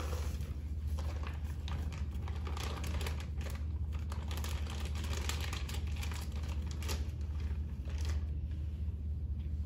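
Clear plastic outer bag of a Foley catheter kit crinkling as it is pulled off and handled, a dense run of irregular crackles that thins out near the end. A steady low hum sits underneath.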